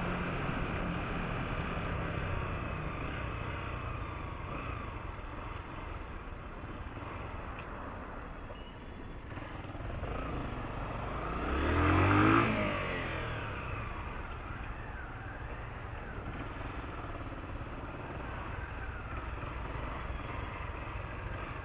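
Dual-sport motorcycle engine running steadily while riding, with wind and road noise. About twelve seconds in, another vehicle passes close by and the sound swells and falls away.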